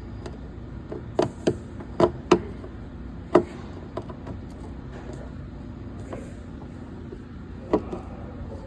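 Sharp clicks and knocks of hand tools and door trim parts being handled, about six in the first four seconds and one more near the end, over a steady low hum.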